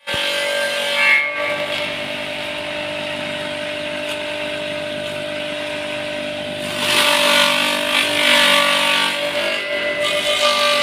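Homemade wooden-box leaf shredder running with a steady motor hum. About a second in there is a brief louder burst, and from about seven seconds in a louder grinding noise rises over the hum as leaves and stems are fed in and chopped to a fine mash.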